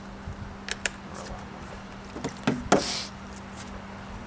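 Plastic bottle of rubbing alcohol handled with a few light clicks, then several knocks as it is set down on the car's trunk lid, the loudest about two and a half seconds in, followed by a brief swish.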